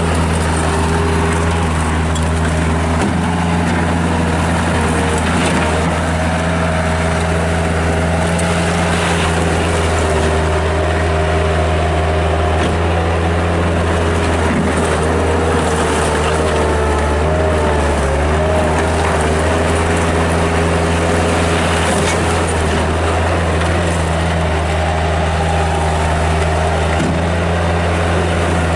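Bobcat 763 skid steer loader's Kubota diesel engine running steadily under load, its pitch wavering and dipping now and then as the machine is driven and worked.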